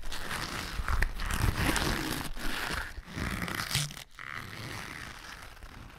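Irregular scraping and rustling from fingers working at the flywheel hub of a miniature model engine.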